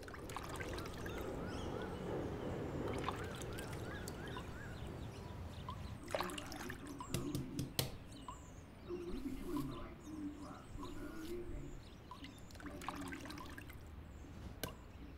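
Birds chirp in the first few seconds. From about six seconds in, water trickles into a bathroom sink, with sharp clicks and taps as a razor is handled at the basin.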